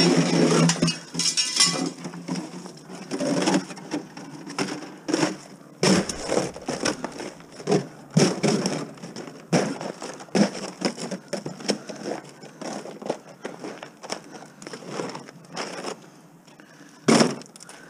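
Thin aluminium flexible dryer duct being crumpled and crushed by hand and stuffed into a plastic bucket: irregular crinkling and crackling, with a sharp knock near the end.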